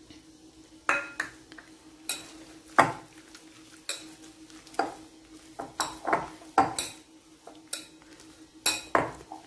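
A hand squishing and slapping thick, wet flour-and-curd batter in a glass bowl, mixing it. The batter makes irregular squelches and knocks, starting about a second in, over a faint steady hum.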